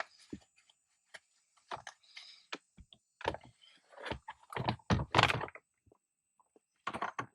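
Irregular clicks, taps and knocks of small plastic and metal shifter trim parts being handled and pressed into place, with the loudest knocks about five seconds in.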